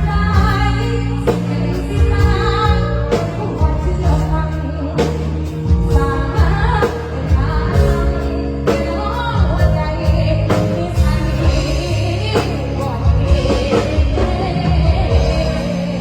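A woman singing an Isan luk thung song over a full band, with a steady electric bass line and regular drum-kit hits, played loud through a sound-truck PA system.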